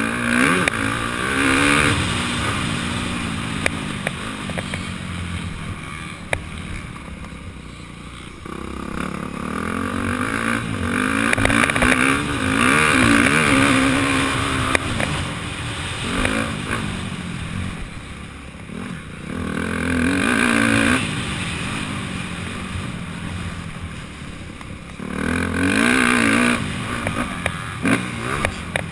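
Dirt bike engine under racing load, heard from the rider's helmet, revving up and dropping back in several long pulls as the bike accelerates and shifts, with small clicks and knocks over it.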